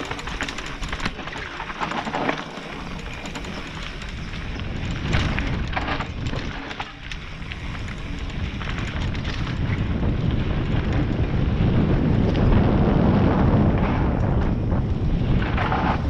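Wind rushing over the microphone and a mountain bike rattling down a rough forest singletrack, growing louder as the bike picks up speed, with scattered clicks and knocks from the trail.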